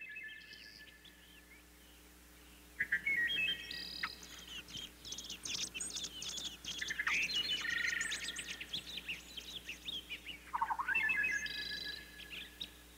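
Birds chirping and singing, several calls and trills overlapping, sparse at first and then busy from about three seconds in until near the end.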